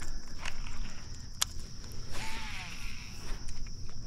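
Insects droning steadily on one high pitch, with a few sharp clicks over it.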